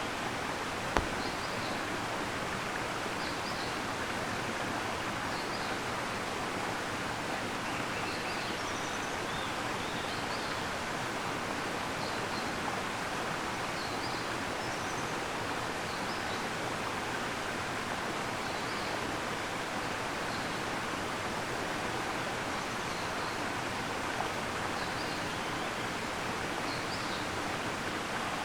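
Waterfall rushing in a steady, even wash of falling water. A single brief knock sounds about a second in.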